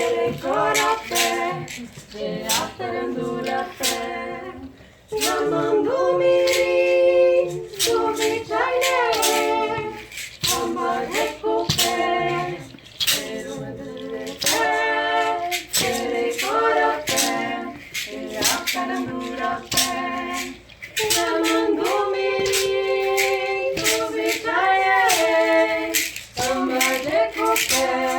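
Unaccompanied singing in a small, close-sounding room, in phrases with some held and gliding notes, with frequent sharp clicks or taps among the notes.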